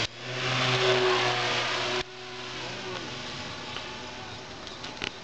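A radio-controlled Messerschmitt Bf 109 model airplane's motor and propeller running at full throttle, a steady buzzing hum. About two seconds in it drops suddenly to a fainter, steady drone from the plane in the air.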